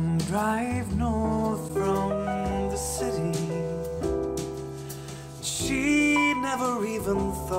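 A pop song with a sung vocal over keyboard, played back through a pair of JBL 104 studio monitors and then, about halfway through, through a pair of KRK Rokit 5 G4 studio monitors, recorded in the room.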